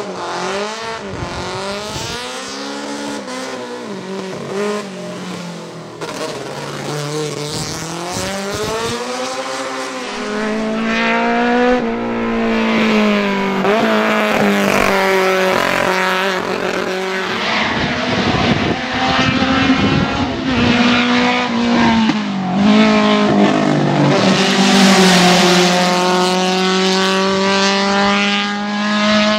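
Opel Ascona 2.0E race car's four-cylinder engine revving hard under full-throttle acceleration up a hillclimb. Its pitch climbs and drops again and again through gear changes and lifts, and it grows louder about a third of the way in.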